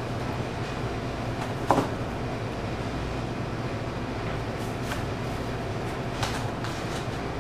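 Flat cardboard pizza boxes being folded by hand: a few short creasing snaps, the loudest about a second and a half in. A steady low hum runs underneath.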